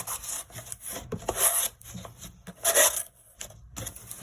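Folded, creased box panels scraping and rubbing against each other as the divider ends are wrapped and tucked together, in a string of short scrapes, the two loudest about a second and a half and nearly three seconds in.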